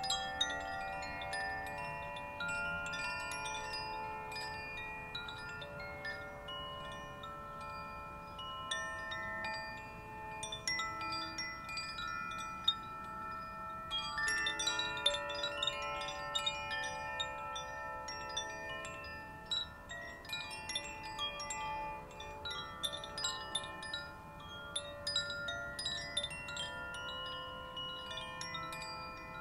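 Koshi chimes ringing: the clapper inside strikes the tuned rods again and again, leaving many overlapping sustained, shimmering tones.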